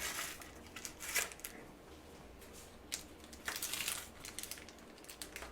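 Foil wrapper of a Pokémon booster pack being handled, crinkling in short, scattered bursts.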